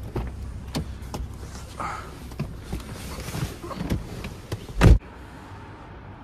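Nissan sedan door being opened by its handle, with clicks and knocks as someone climbs into the driver's seat, then the door shut with a heavy thump just before five seconds in.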